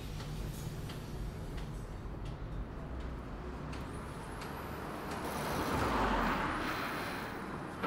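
Street traffic: a steady low rumble with vehicles passing, the road noise swelling about five seconds in, peaking near six seconds and fading away.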